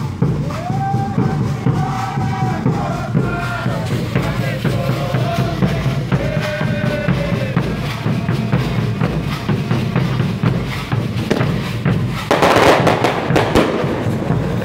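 Drums beating steadily under voices singing a melody through the first half, with a loud rushing burst of noise about twelve seconds in, lasting over a second.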